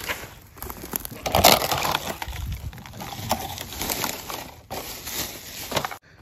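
Black plastic trash bag rustling and crinkling as it is handled, with irregular crunches and small clinks, loudest about a second and a half in. It cuts off suddenly near the end.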